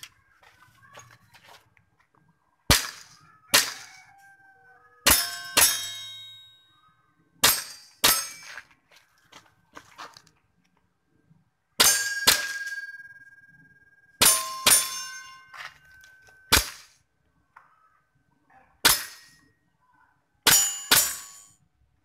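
Gas-powered airsoft Glock 17 pistol firing about fourteen shots at irregular intervals, often in quick pairs, with steel plate targets clanging and ringing on after many of the hits.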